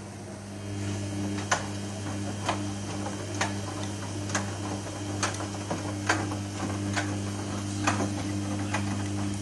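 Samsung WW80J5555FWEU front-loading washing machine running a wash: a steady motor hum that steps up about half a second in, with a sharp click about once a second as the drum turns.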